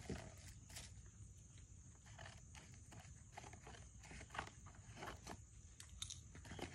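Near silence with faint scattered taps and rustles of cardboard packaging being handled and pulled off a bicycle frame.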